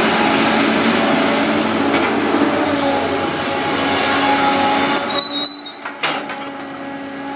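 Diesel engine of heavy earthmoving machinery running steadily under load. About five seconds in comes a brief high squeal, and then the sound drops off sharply.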